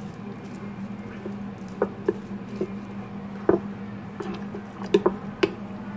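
A metal spoon stirring thick, floury batter in a glass bowl, with irregular clicks and knocks as the spoon strikes the glass. The loudest knocks come about three and a half seconds in and again near five seconds. A steady low hum runs underneath.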